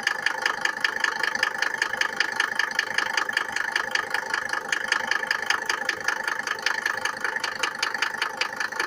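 Mercedes-Benz W124's OM602 2.5-litre five-cylinder diesel idling with a steady, even knock, the knocking that this engine makes when cold.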